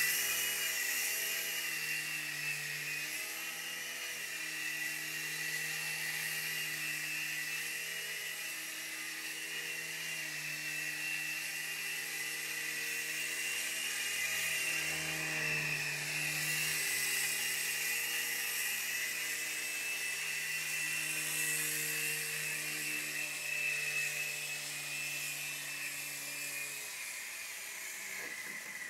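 Night Hunter mini twin-rotor RC helicopter flying: its small electric motors give a steady high-pitched whine over a lower rotor hum that shifts a little in pitch. The sound cuts off at the very end.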